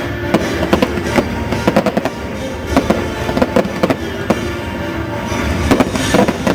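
Fireworks going off in quick, irregular bangs and crackles, several a second, over loud show music.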